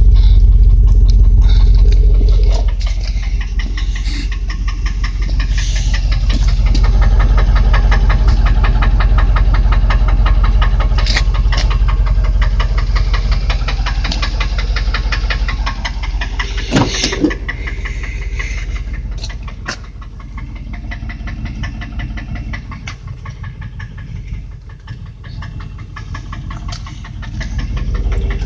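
Land Rover Discovery engine idling with a fast, even ticking knock over its steady running, which the owner puts down to an exhaust manifold leak. It is louder in the first couple of seconds and quieter in the last third.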